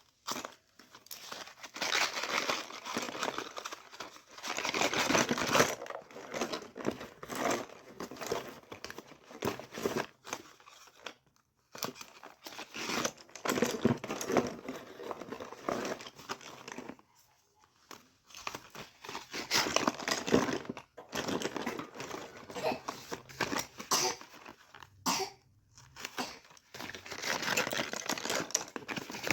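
Packaging being crinkled and torn open by hand, in irregular bursts of a few seconds with brief pauses between them.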